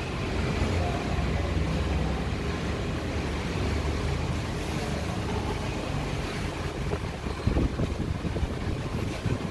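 Wall-mounted electric fan running: a steady low rumble of moving air, with a few short low thumps near the end.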